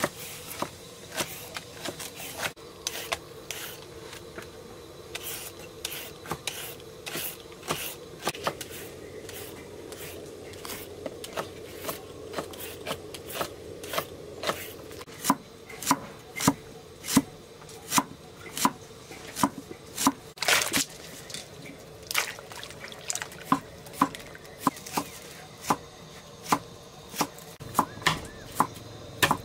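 Knife chopping food on a cutting board. The cuts come irregularly at first, then turn into steady, louder strokes about two a second from about halfway through.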